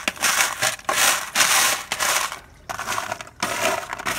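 A wooden spoon stirring dry nuts, pumpkin seeds and then cashews, in disposable aluminium foil pans: a crunchy rattling and scraping in about five strokes with short pauses between them.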